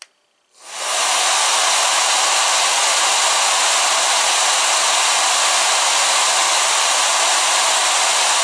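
A 1600-watt Tool Science Moisture Balance digital pistol hair dryer switched on with a click, its motor spinning up within about half a second into a loud, steady rush of blown air. It runs on its heat setting as the temperature is raised to the top setting, 245°F.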